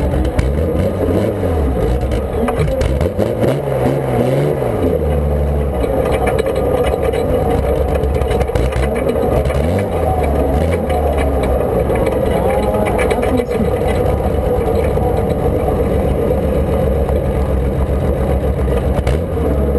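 Garden pulling tractor's engine running hard and loud without a break, its pitch rising and falling.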